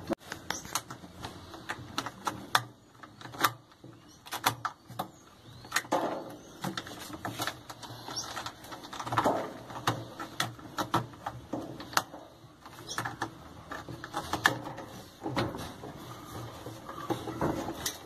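Irregular clicks, taps and knocks of metal and plastic as a washing machine's suspension rod and spring are handled and worked loose from the cabinet's plastic socket.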